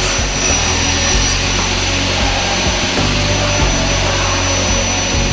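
Double mitre saw's circular blade running and cutting through an aluminium extrusion with a steady, dense hissing saw noise. Background music with changing bass notes plays underneath.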